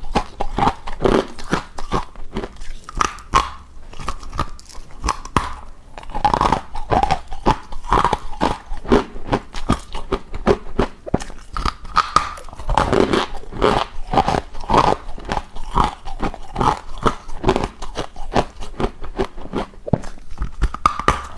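Deep-freezer ice being bitten and chewed close to the microphone: a dense run of sharp crunches, several a second.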